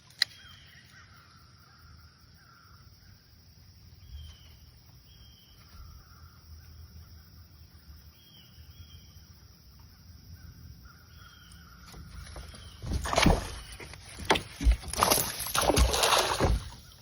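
Calm water with faint chirping calls, then, from about twelve seconds in, a hooked largemouth bass splashing and thrashing at the surface in a run of loud bursts.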